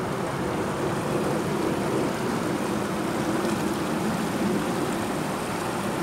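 Shallow stream water rushing and splashing over rocks, a steady, even rush.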